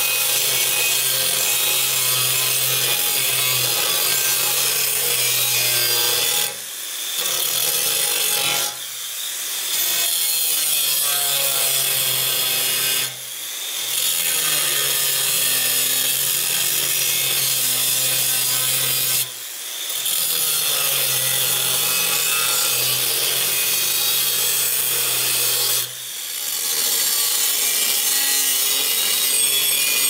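Angle grinder cutting into the steel of an old sawmill blade: a loud, steady, hissing grind over the motor's hum, dropping off briefly about five times before picking up again.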